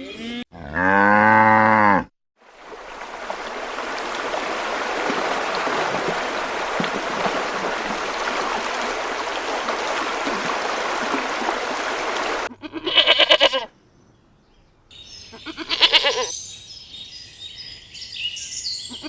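Farm animals bleating: a pitched call about a second in, then after a long stretch of steady hiss, several short wavering bleats in the last six seconds.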